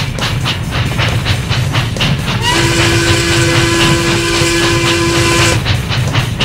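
Steam locomotive sound effect: steady chugging, about four chuffs a second. A steam whistle blows one long steady note from about two and a half seconds in until just before six seconds, with a hiss of steam above it.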